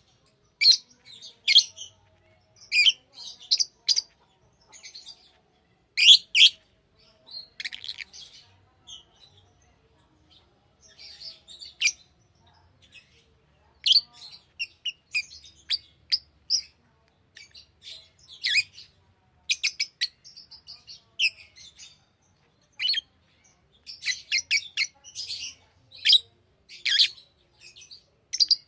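Pet lovebirds chirping: short, high-pitched chirps in quick clusters with brief pauses between.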